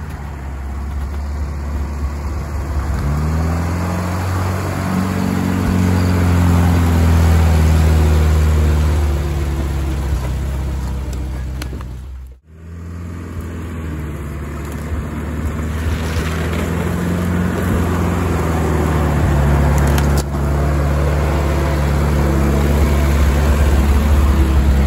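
1967 GAZ-69's four-cylinder side-valve engine running under load off-road, its pitch rising and falling with the throttle. The sound cuts out abruptly about halfway through and then picks up again.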